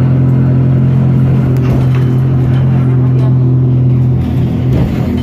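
Steady low drone of a city bus's engine and road noise, heard inside the passenger cabin while the bus drives along. The drone briefly wavers about four seconds in, then settles again.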